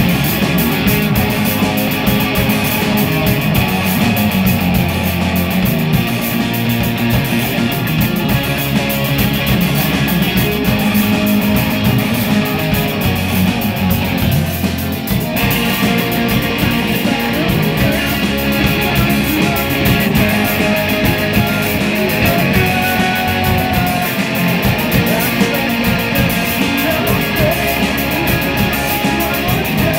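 A rock band playing a song live, with guitars to the fore over drums; the sound is loud and full throughout, and the texture changes briefly about halfway through.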